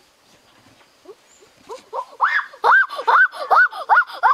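A boy's voice crying out in a quick run of about eight short, loud yelps that rise and fall in pitch, starting about halfway through after a quiet first half.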